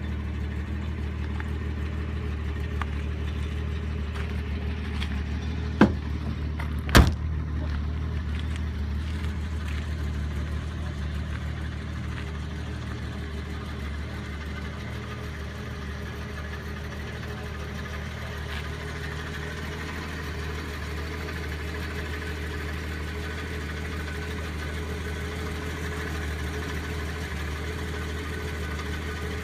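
1964½ Ford Mustang idling steadily. About six seconds in comes a light click, then a second later a loud slam as the door is shut.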